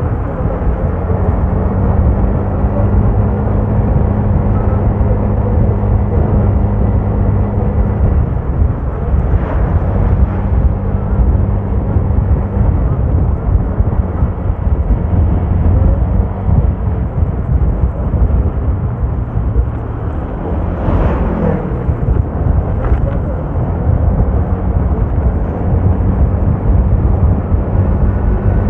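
Vehicle engine running under steady road and wind rumble while on the move, its pitch stepping down and back up a few times as speed changes. A brief louder rush about two-thirds of the way through.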